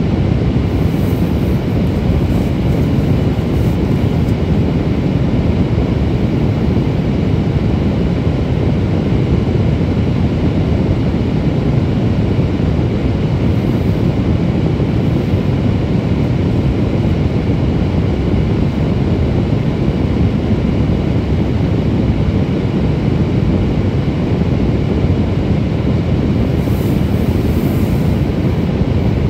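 Steady low rumble of a moving vehicle, unchanging throughout.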